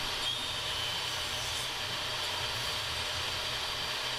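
A steady mechanical whirr with a low hum and a faint high whine, holding level throughout.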